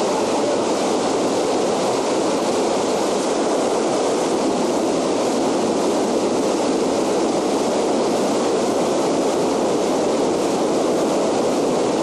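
Fast whitewater of a cold mountain river rushing steadily around rocks.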